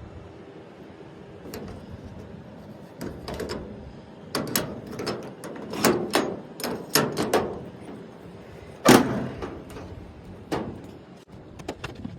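A door being handled: a run of knocks and clatters, the loudest about nine seconds in.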